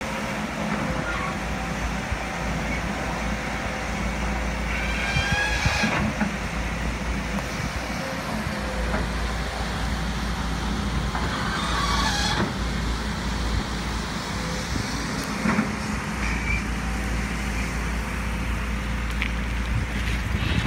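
Volvo crawler excavator's diesel engine running steadily. Two brief high-pitched squeals come about five and about twelve seconds in.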